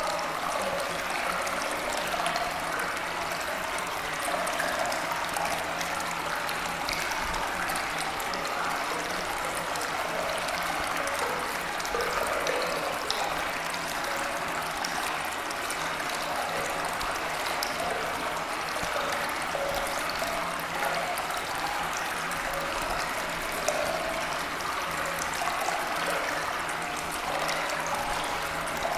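Steady running water like a stream, an even unbroken flow.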